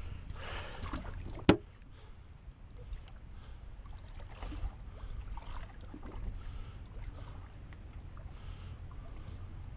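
Low steady rumble of wind and water around a small fishing boat, with one sharp knock about a second and a half in and a few faint small handling sounds after.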